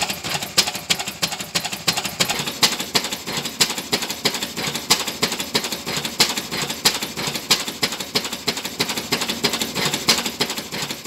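Lister L type 6.5 hp petrol stationary engine running at a steady speed, a fast, even ticking beat with no let-up.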